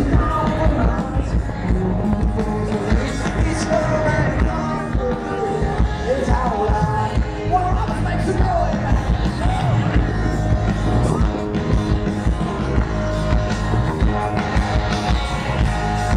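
Live rock band playing through a PA system: a singer over electric guitars, bass and drums.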